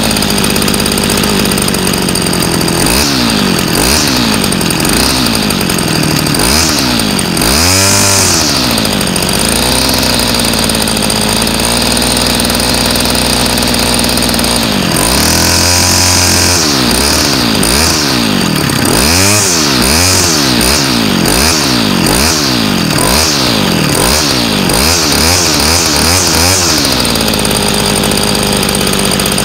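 Homelite Bandit SX-135 string trimmer's 25cc two-stroke engine running, revved up and down again and again on the throttle and dropping back to a fast idle between revs, with a run of quick blips in the second half before it settles. The idle is being adjusted on the freshly revived engine.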